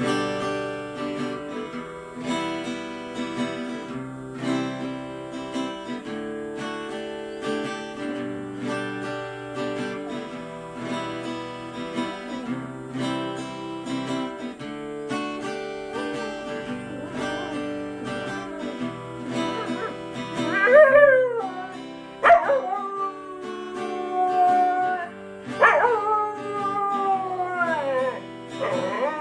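Guitar strummed in a steady rhythm. About two-thirds of the way in, a Staffordshire bull terrier starts howling along: several long howls that slide down in pitch and are louder than the guitar.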